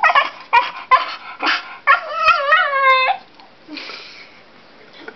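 Shiba Inu's demanding vocalizing: a run of short yelping barks, then one longer wavering, howl-like whine about two seconds in, lasting about a second, the dog's 'shout' for ice cream it is being refused.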